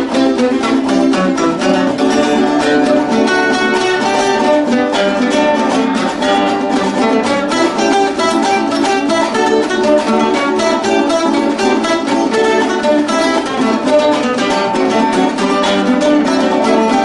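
Venezuelan folk music on plucked strings, bandola and cuatro, playing a fast, unbroken stream of picked notes with little bass.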